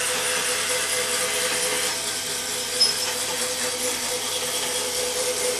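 Battery-powered DC motor of a B9 robot arm's in-and-out drive running steadily as it pushes the claw carriage outward: an even whir with a constant hum tone, and one short tick about three seconds in.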